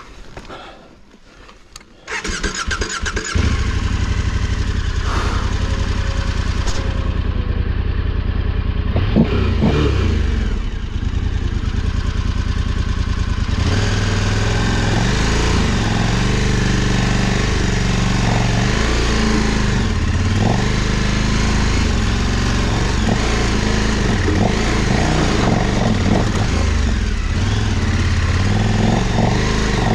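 KTM 1290 Super Adventure R's V-twin engine starting about two seconds in after a stop, then running steadily. From about halfway its note rises and falls with the throttle.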